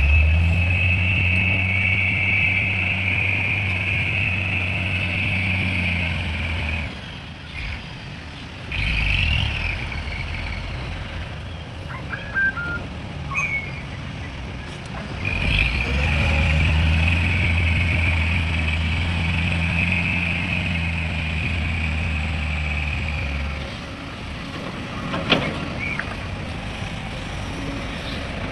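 Heavy diesel machine's engine working under load with a high whine over it, in two long spells of about seven and eight seconds, dropping back to a lower running level between them; a few short sharp sounds in the lull.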